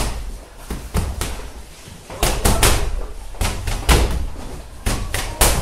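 Boxing gloves punching padded wall bags: sharp thuds landing in quick combinations of two or three, repeated several times.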